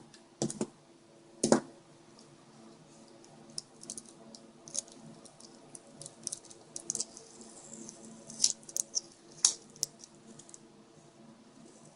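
Scattered light clicks and taps of small plastic GPS parts being handled, a few of them sharper, over a faint steady hum.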